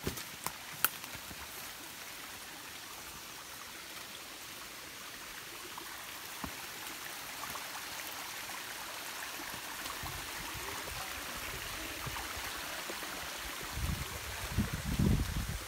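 Steady rush of a stream's flowing water, swelling a little louder toward the end, with a couple of sharp clicks about a second in and a few low thumps near the end.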